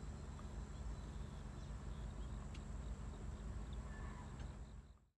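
Outdoor ambience of a steady low rumble under a thin, steady, high insect drone from crickets. A few faint ticks come through, and the sound fades out just before the end.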